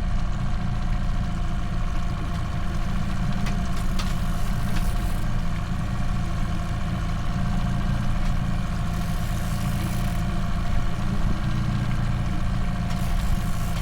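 Boat motor running steadily at slow trolling speed, a low drone.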